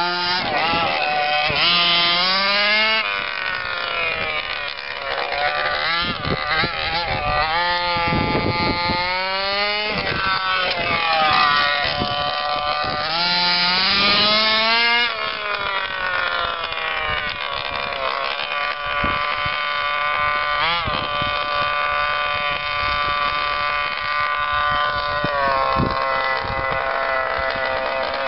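The 26cc two-stroke petrol engine of an HPI Baja 5B SS 1/5-scale RC buggy, revving up and down as it is driven. The pitch repeatedly rises and falls, and is twice held high at full throttle.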